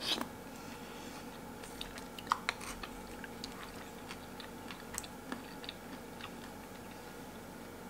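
Eating granola with chopped fruit: a wooden spoon scraping and clicking against a ceramic bowl, with a few sharp clicks (the loudest right at the start, others about two and a half and five seconds in), plus chewing and crunching, over a faint steady room hum.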